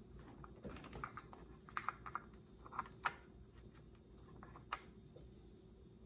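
Faint, scattered clicks and taps of hands handling the parts of a Husqvarna 240 chainsaw, some coming in quick little clusters.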